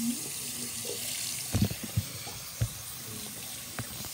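Bathroom sink faucet running, its stream splashing over a wet fabric shark hand puppet held under it. A few short dull thuds come in the middle.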